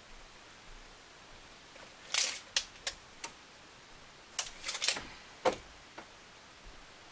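Scattered sharp clicks and taps of hand tools being handled while felt is measured and cut: four spaced clicks about two to three seconds in, then a quicker cluster about four and a half to six seconds in.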